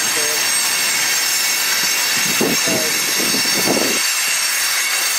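Freight train of coal hopper cars rolling past, a steady noise of steel wheels on rail, with a louder stretch of clatter about halfway through.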